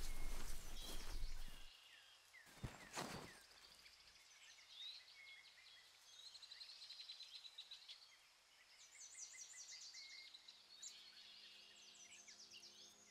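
Music fades out, leaving faint outdoor ambience with many small birds chirping and singing, and two soft knocks just under three seconds in. Soft sustained music starts again near the end.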